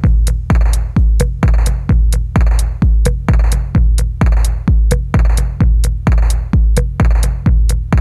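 Electronic dance music with a drum machine: a heavy kick drum about twice a second, with claps and hi-hats between the beats.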